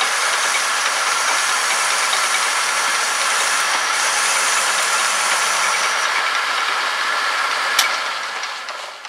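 Homemade metal lathe running under a cut, taking a 2 mm-deep pass on a metal shaft: a steady, loud hiss of the motor, drive and cutting with a few high whining tones, and no chatter. A click comes near the end, and the sound then dies away as the machine is switched off and runs down.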